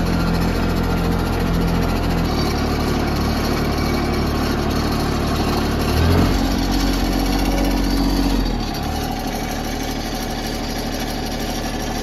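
Compact tractor's engine running steadily, heard from the seat. Its note shifts lower about two seconds in, rises briefly around six seconds, then settles to a lower, quieter idle about eight and a half seconds in.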